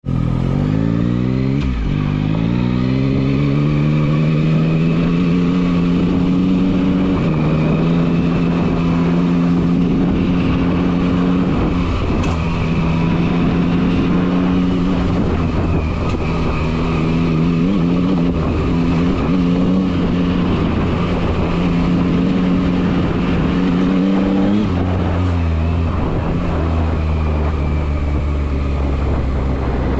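Yamaha MT-09 SP's three-cylinder engine pulling away, its note rising over the first couple of seconds, then running steadily under way with small changes in pitch. About five seconds from the end it drops to a lower, steady note.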